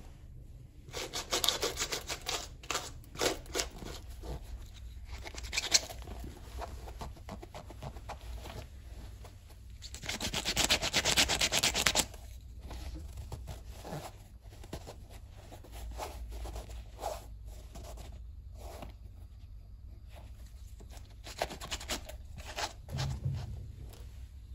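A suede brush or eraser rubbing back and forth over black suede, in scratchy bursts of quick strokes. The longest and loudest run comes about ten seconds in and lasts two seconds. A steady low hum runs underneath.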